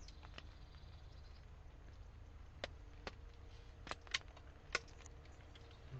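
Faint steady low hum with five short, sharp clicks spaced out over the second half.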